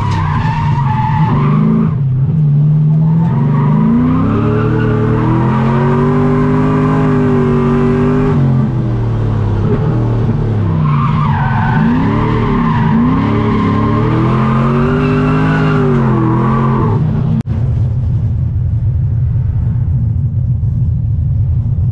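A drift car's engine revving up and down over and over while the tyres squeal through a drift. About 17 seconds in there is a sudden break, and a steady low engine drone follows.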